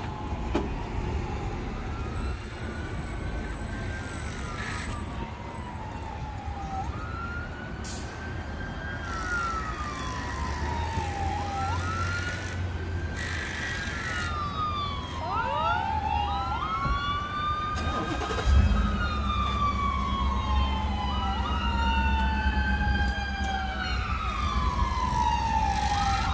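Emergency vehicle siren wailing, in slow sweeps that rise and then fall, one about every four seconds, growing louder; from a little past halfway a second siren overlaps with quicker sweeps. A low engine rumble runs underneath in the second half, with one sharp knock, the loudest sound, about two-thirds of the way through.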